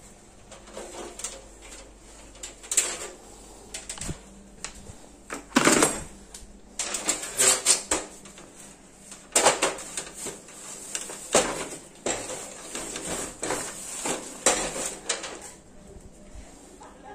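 Irregular knocks and clatters of wooden boards and hand tools being handled and set down, with no power tool running.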